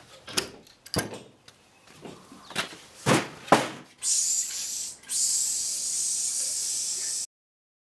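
A few knocks and thumps, then a gravity-feed paint spray gun hissing in two bursts: a short one, a brief gap, then a longer one that cuts off suddenly.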